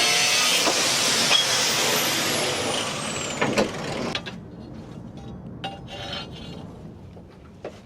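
A power tool cutting the steel car leaf spring, with a harsh grinding noise, then switched off and spinning down with a falling whine. It fades out about four seconds in, and a few light knocks and clicks of metal being handled follow.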